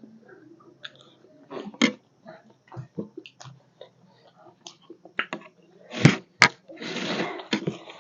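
Chewing and crunching of chatpate, a spicy puffed-rice snack, heard as scattered small crunches and crackles. There is a denser, louder run of crunching a little after six seconds in.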